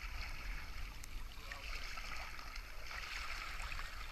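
Sea water splashing and sloshing as a swimmer sweeps her arms through it, close to a camera held at the water's surface, over a low rumble.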